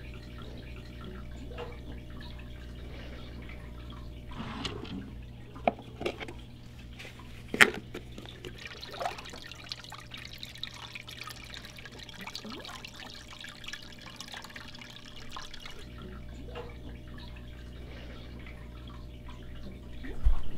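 Water dripping and splashing in a fish tank over a steady low hum. The drips and splashes cluster in the middle, with a sharp click among them, then the water quietens to a light trickle.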